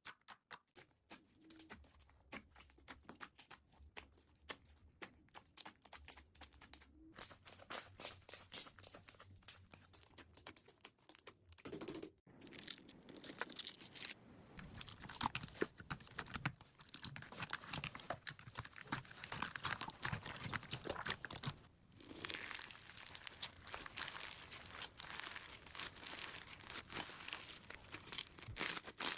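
Slime being squeezed and pressed by hand, giving dense crackling, clicking and crunching. It is lighter at first, then louder and busier after a short break about twelve seconds in, with another brief break later.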